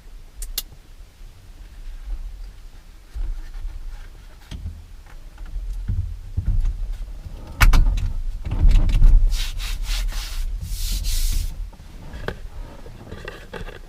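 Handling noises from refitting the airbag module into a steering wheel: rubbing and knocking of plastic parts, with a sharp click about seven and a half seconds in and a few seconds of scraping and rustling after it.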